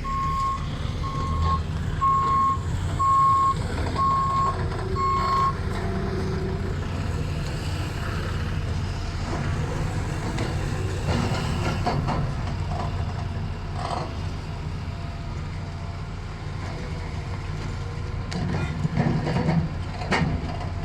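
A heavy vehicle's reversing alarm beeping steadily, a little over once a second, stopping about five seconds in, over the steady low rumble of a diesel engine. A few metallic clanks come near the end.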